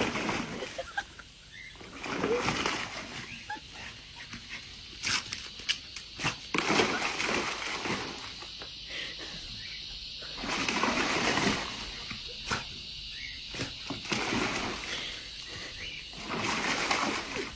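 A Staffordshire bull terrier splashing and thrashing in a foam-filled plastic paddling pool, the water and suds sloshing in irregular bursts.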